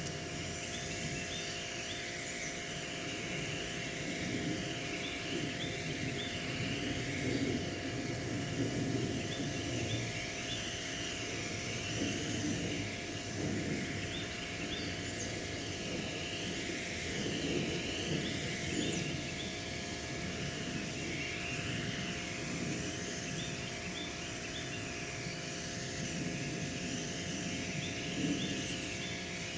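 Electric pressure washer running steadily, its motor and pump humming under the hiss of the water spray on concrete, the hiss swelling and fading as the spray moves.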